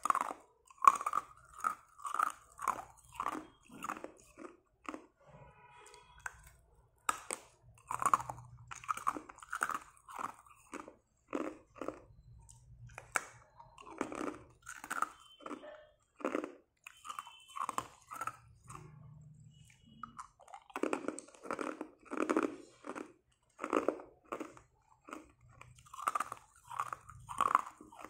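Hard ice sticks bitten off with sharp snaps and crunched between the teeth: a steady run of crisp crunches, about two a second, broken by a few short pauses.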